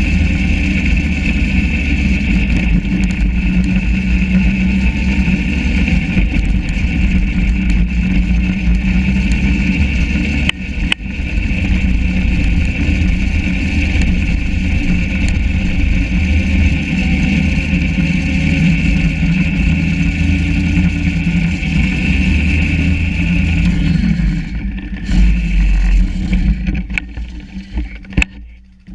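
Yamaha SRV 540 snowmobile's two-stroke engine running steadily with a constant high whine over it. About 24 seconds in the sound changes and then dies away over the last few seconds.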